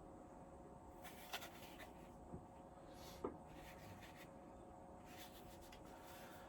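Near silence: faint room tone with a steady low hum, and a few faint clicks and rubbing sounds of a small object being handled.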